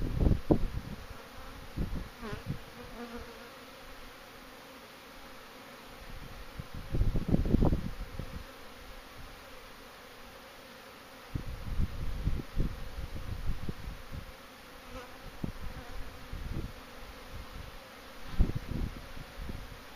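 Many honeybees buzzing in flight around their hives, a steady hum from a high level of flight activity, with now and then a single bee passing close by in a short rising-and-falling buzz. Loud low rumbles swell and fade several times over the hum.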